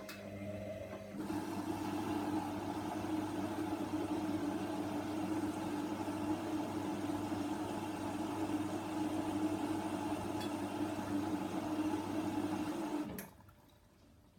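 Hoover washer dryer filling with water: the inlet valve hums while water rushes steadily into the machine, then the valve shuts off suddenly near the end.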